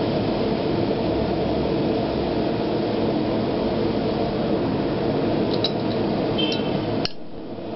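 Steady roaring workshop machine noise, with a few light metal clinks from tongs and bar on the steel guillotine tool about five and a half and six and a half seconds in. The roar drops away suddenly about seven seconds in.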